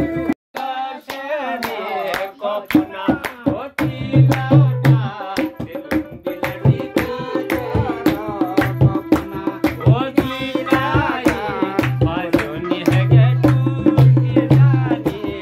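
Pahadi folk song: a man singing over a hand-played dholak with steady low booms and sharp strokes, and electronic keyboard backing. The sound drops out briefly about half a second in.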